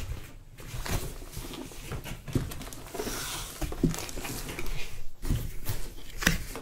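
Cardboard keyboard box being handled and opened: rustling packaging with a scatter of short knocks and taps, and a longer rustle about three seconds in.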